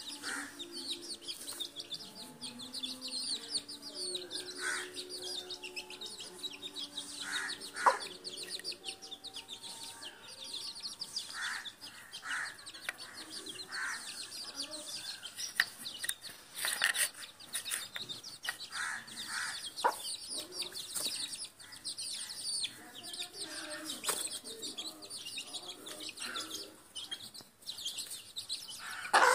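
Chickens: young chicks peeping constantly and high, while a hen gives low drawn-out clucks, mostly in the first third and again later, with scattered short sharp clucks.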